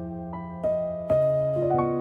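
Calm, slow piano-like keyboard music: single notes struck about every half second and left ringing over a held low note, which shifts lower about a second in.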